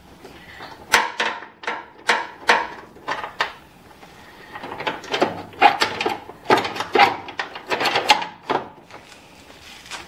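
Ratchet wrench with a half-inch socket clicking in short bursts as it backs out the bolts holding a snowblower's hex shaft bearing. There are two stretches of sharp clicks with a brief lull about four seconds in.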